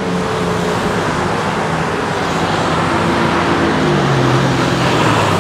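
Road traffic on a wet city street: a steady hiss of tyres and engines, with one vehicle's engine passing close, rising in the middle and dropping in pitch near the end.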